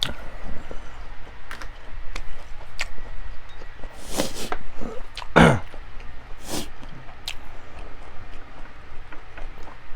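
Close-miked eating sounds: a person chewing with wet mouth clicks and smacks, with a louder burst about four seconds in and a short falling sound about five and a half seconds in.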